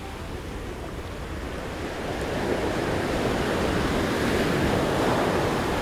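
Ocean surf breaking and washing up the beach, growing louder from about two seconds in as a wave comes through.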